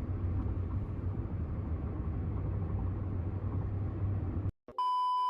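A steady low rumble with a faint hiss above it, which cuts off sharply a little over four seconds in. After a brief gap, a steady electronic beep tone, pitched around 1 kHz, begins and holds.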